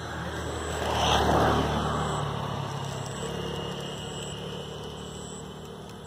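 A motor vehicle passing: a low engine hum that swells to its loudest about a second and a half in, then fades away.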